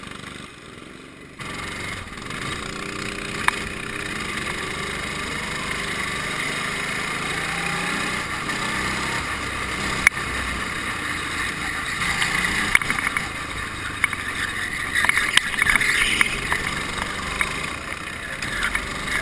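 Go-kart engine running as the kart pulls away and laps the track, its pitch rising and falling with the throttle. It gets louder about a second in.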